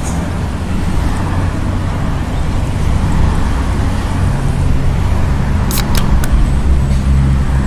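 Steady low rumble of motor traffic, with a few small sharp clicks about six seconds in.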